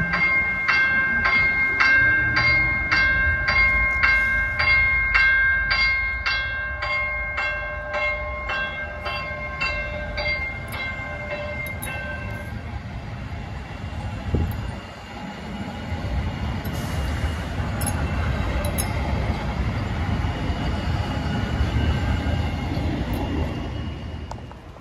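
LA Metro light-rail train's bell ringing in a quick, even run of dings as the train moves through the intersection. The bell stops about twelve seconds in, leaving the low rumble of the passing railcars' motors and wheels.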